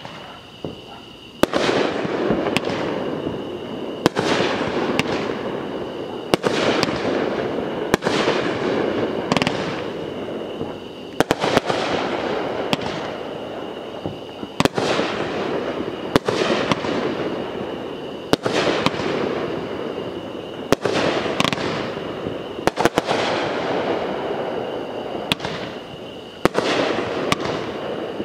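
Aerial fireworks going off in quick succession, starting about a second in: a sharp bang every second or two, each followed by a crackling, echoing decay.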